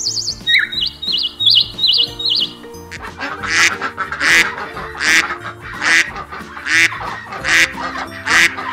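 A European bee-eater gives short trilled chirps for the first two and a half seconds. Then white domestic geese honk over and over, about seven loud calls a little under a second apart.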